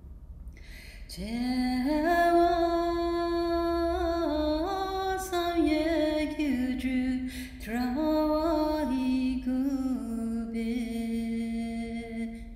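A woman's solo voice chanting a Tibetan Buddhist tsog offering melody unaccompanied, entering about a second in and holding long, slow notes that step up and down, with a short break midway.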